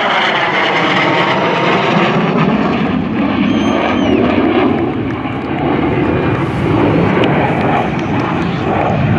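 JF-17 Thunder fighter's single RD-93 turbofan jet engine roaring loudly as the jet makes a display pass. Its sweeping tones fall in pitch over the first couple of seconds, then it carries on as a steady rumbling roar.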